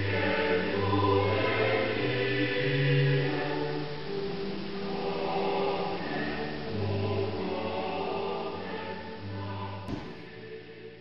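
Choir singing slow, held chords that fade away near the end, with a brief click just before the fade.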